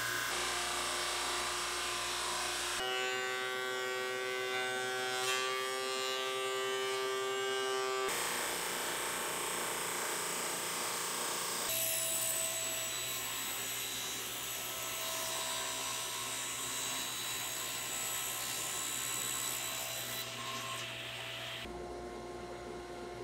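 Woodworking machines running and cutting boards in several short takes: a board fed through a planing machine, then a SawStop contractor table saw running and cutting. The sound changes abruptly several times, with a steady machine whine in one stretch.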